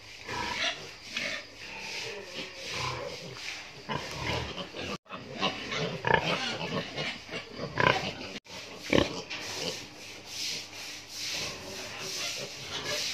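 Pigs grunting in a barn, many short calls overlapping. The sound drops out briefly twice, at edits.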